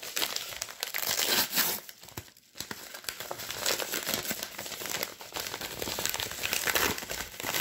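A mail-order package being opened by hand: packaging crinkling and tearing, with a brief pause about two and a half seconds in.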